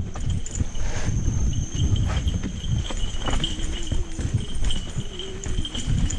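Mountain bike clattering and rattling as it rolls fast over a rough dirt trail, with many irregular knocks from roots and bumps over a dense low rumble.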